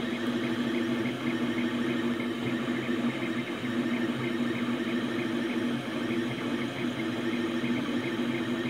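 3D printer running mid-print: a steady motor hum with a quick, even pulsing as the print head moves back and forth laying down the part.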